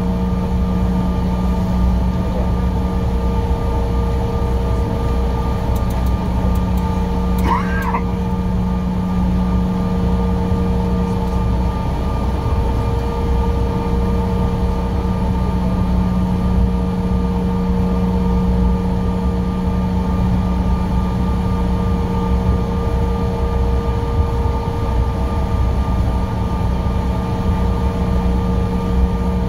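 Cabin noise of a Bombardier CRJ-700 taxiing on the ground: its rear-mounted turbofan engines run at low power with a steady hum and several steady whining tones over a constant rumble. A brief wavering tone sounds once, about eight seconds in.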